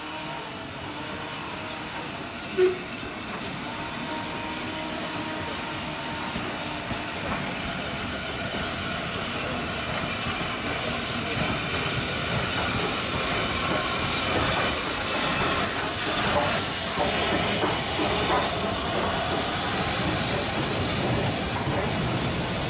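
Baldwin-built USATC S160 2-8-0 steam locomotive running slowly past with its train. Steam hiss and uneven exhaust beats grow louder as it draws near, and then its coaches roll by. A brief loud tone sounds about two and a half seconds in.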